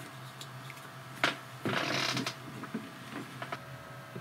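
Small drone parts and packaging being handled on a workbench: a sharp click about a second in, then a brief rustle lasting about half a second, with a few light taps and a faint steady hum underneath.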